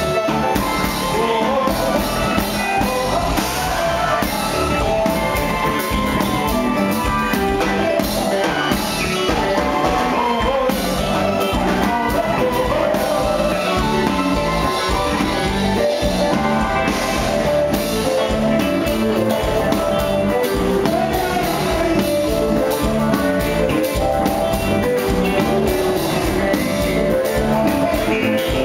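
Live band playing loud, steady music with a sung vocal over electric guitar, bass guitar and drums.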